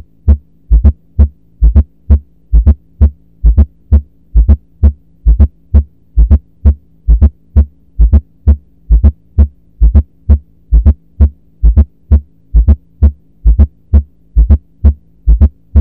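Recorded heart sounds: a steady, regular rhythm of low thumps grouped into beats at about seventy a minute, over a faint steady hum.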